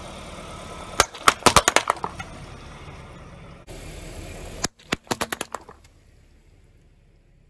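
A car tyre rolling over and crushing brittle objects: a quick run of sharp cracks and snaps about a second in, then a second run of cracks after a cut, about five seconds in.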